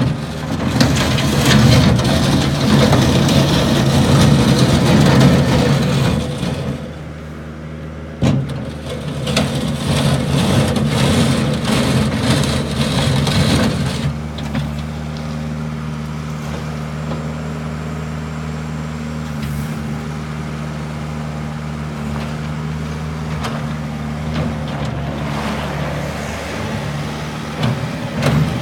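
Bobcat S205 skid steer's diesel engine running at higher revs, easing off briefly about seven seconds in, where a single knock sounds, then revving again. About halfway through it settles to a steady idle.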